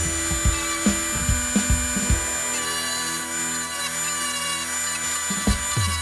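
Background electronic music with held synth tones over a kick-drum beat; the beat drops out for about three seconds in the middle and comes back near the end.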